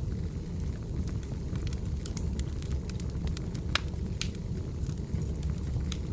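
Wood fire burning: a steady low rumble of flames with scattered sharp crackles and pops of burning firewood. The loudest pops come about four seconds in.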